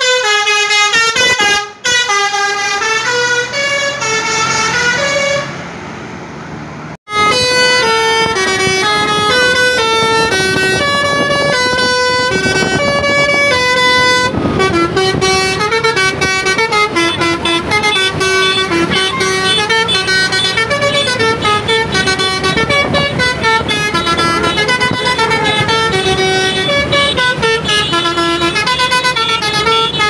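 Indonesian bus 'basuri' horn, a multi-trumpet air horn, playing a tune note by note in stepped pitches. It fades about six seconds in, and after a short break another bus's basuri horn plays a longer, quicker tune.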